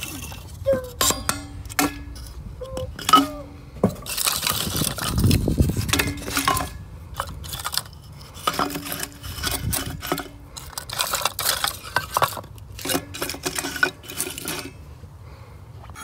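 Split wooden kindling sticks clattering and knocking against the steel feed chamber of a rocket stove as they are dropped in, a run of sharp knocks and clinks, some ringing briefly.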